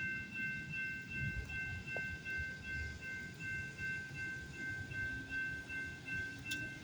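Railroad grade-crossing warning bell ringing in a steady, rapid pulse over the low rumble of a BNSF freight train rolling through the crossing.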